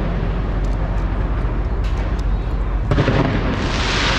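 Fireworks display: a continuous low rumble of bursts with scattered sharp crackles, building into a dense crackling hiss about three and a half seconds in.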